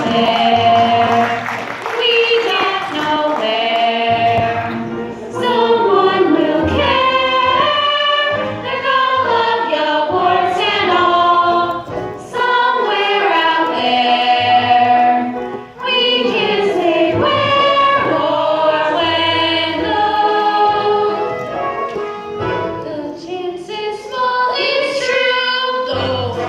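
A group of voices singing a melody together in harmony, choir-like, over a low bass line, with short breaks between phrases.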